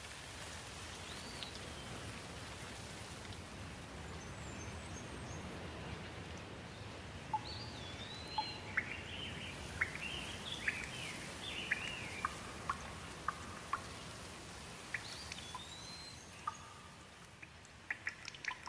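Steady rain hissing, with birds chirping over it. A flurry of short calls comes in the middle, then a few more calls near the end.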